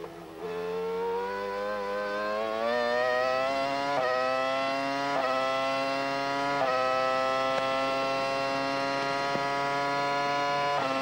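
1999 McLaren Formula One car's Mercedes 3.0-litre V10, heard from the onboard camera, accelerating hard out of a corner. Its high, wailing note climbs steadily and is broken by quick upshifts about 4, 5 and 6.5 seconds in. It then holds a high, almost steady pitch on the straight, with one more shift near the end.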